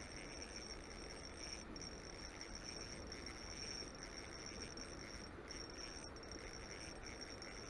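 A faint, steady high-pitched trill with a few short breaks, like a cricket or similar insect, over low outdoor background noise.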